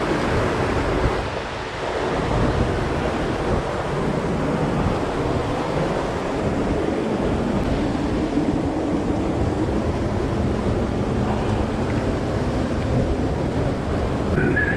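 Mountain stream rushing over rocks close to the microphone: a loud, steady wash of water.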